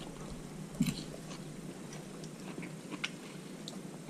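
Quiet eating sounds at a meal: chewing and faint scattered clicks, with a brief low sound just before a second in.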